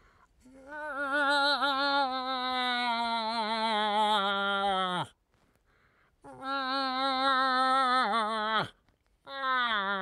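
A hunter's voiced moose call: long, drawn-out nasal moans imitating a cow moose, each sagging in pitch and dropping off sharply at its end. One long call of several seconds, a shorter second one, and a third starting near the end.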